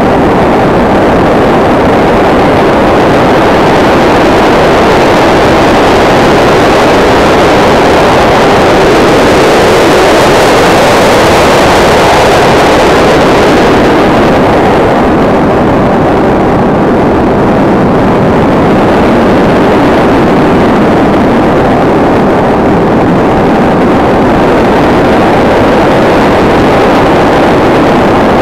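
Loud, steady rush of air over the onboard camera of a SkyCruise 2400 RC model plane in flight, mixed with its brushless electric motor and folding propeller running. The rush turns brighter and hissier around ten seconds in, then settles duller.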